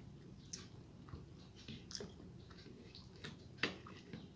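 Close-up eating sounds: a person chewing a mouthful of rice and egg curry, with scattered wet mouth clicks, one sharper click near the end.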